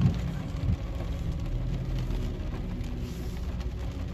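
Low, steady rumble of a car heard from inside its cabin in the rain, with a light patter of rain over it. Two dull thumps come in the first second.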